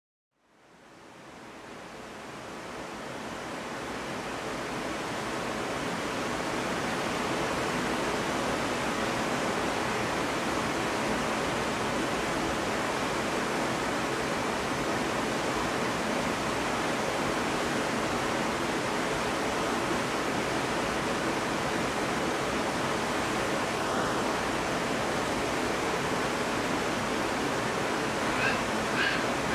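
Steady rushing of a mountain stream, fading in over the first few seconds and then holding level. A few faint, short high chirps near the end.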